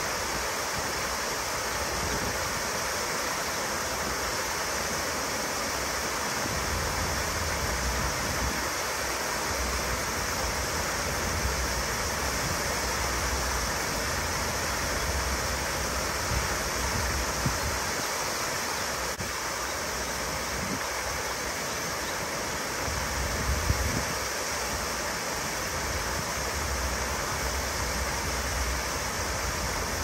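Courtyard waterfall pouring steadily, an even rushing of falling water, with a low rumble that swells and fades now and then.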